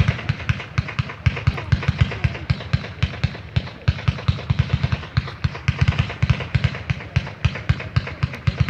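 Fireworks battery (cake) firing a rapid, uneven string of shots, several a second, each a low thump with a sharp crack, over crackling from the sparks.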